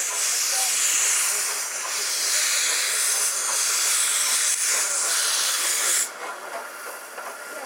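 Steam locomotive hissing loudly as it pulls away with a train, steam escaping at the front end. The hiss cuts off suddenly about six seconds in, leaving quieter running with faint clicks.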